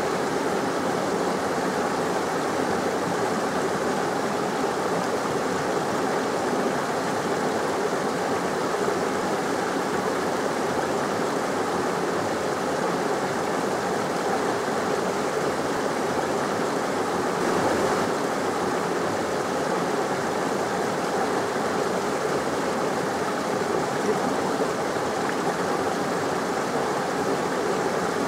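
Steady rushing of a moorland beck: an even water noise with no breaks or changes.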